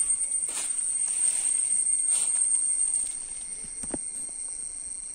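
Insects droning in a steady, high-pitched buzz with a fast pulse, louder for the first three seconds and then fading a little, with a few brief rustles and a single short knock about four seconds in.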